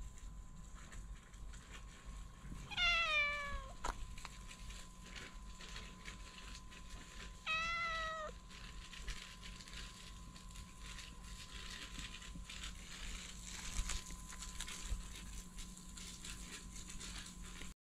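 A cat meows twice, a few seconds apart: the first meow is longer and falls in pitch, the second shorter.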